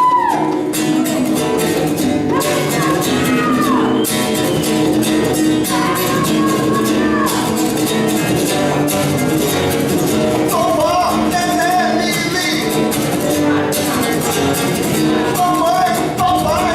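Live band music: a sliding, bending melody line carried over steady accompaniment, with no clear words.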